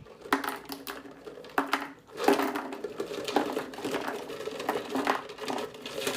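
Small plastic toy farm animals clattering and knocking together as they are handled in a plastic bucket: scattered clicks at first, then a dense run of knocks from about two seconds in.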